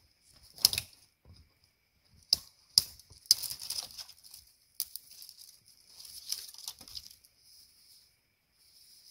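Footsteps crunching in snow: a run of sharp, irregular crunches, loudest in the first few seconds and fading out near the end.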